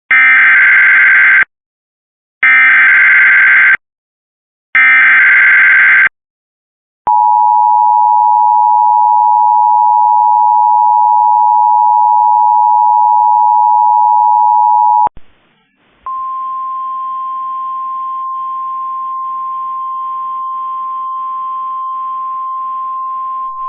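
Emergency Alert System activation for a severe thunderstorm warning. It opens with three bursts of the screechy SAME digital header, each about a second and a half. The steady two-tone EAS attention signal follows for about eight seconds, then after a brief gap a single steady alert tone with faint hiss underneath.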